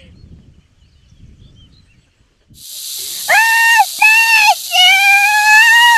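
A woman screaming in three long, high, held cries over a loud steady hiss that starts about two and a half seconds in.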